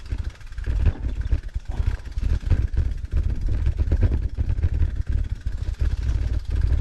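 Wind buffeting the microphone of a handlebar-mounted action camera: a loud, gusty low rumble that swells and dips irregularly.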